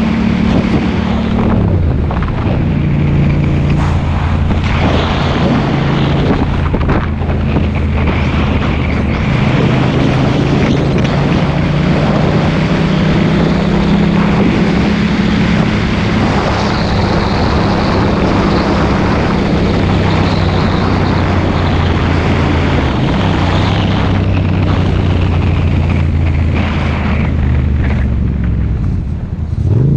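Motorcycle engine running at road speed with a steady drone that steps down in pitch a few times, as with gear changes, and climbs sharply near the end as it accelerates. Heavy wind rush over the microphone.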